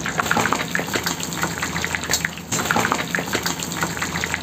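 Fish deep-frying in a large kazan of hot oil, sizzling steadily with dense, rapid crackles; the fish is done and is being lifted out with a wire skimmer.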